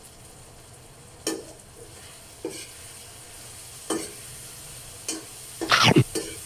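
Pork sisig sizzling in a frying pan as a metal spatula stirs it, clinking and scraping against the pan about once a second, with one louder scrape near the end.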